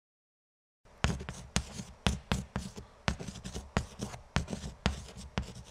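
Chalk writing on a blackboard: a run of sharp taps, about three a second, each trailing into a short scratch, starting about a second in.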